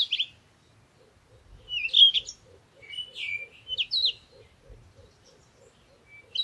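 A songbird singing in short bursts of quick, high, sliding chirps, with gaps of about a second between the bursts.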